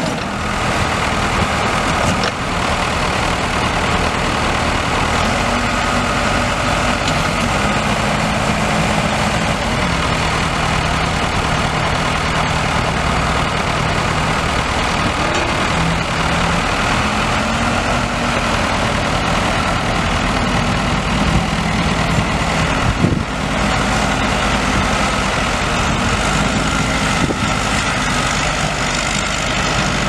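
The Case four-cylinder turbo diesel engine of a 2003 Case 580 Super M backhoe running steadily, its pitch stepping up and down several times as the engine speed changes.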